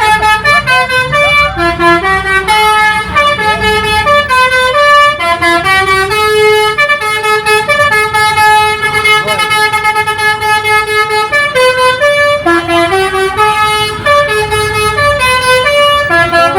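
A bus's Basuri telolet horn, a multi-note musical air horn, playing a tune of held notes that step up and down in pitch without a break, over a low engine and traffic rumble.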